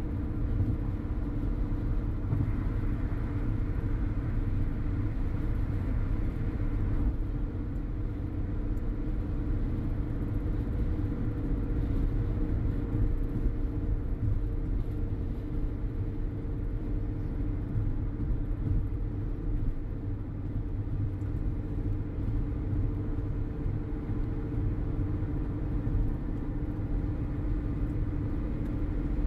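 Steady road noise inside a car at highway speed: a low rumble of tyres on concrete and engine, with a constant hum. There is a little more hiss for the first several seconds, and it drops off about seven seconds in.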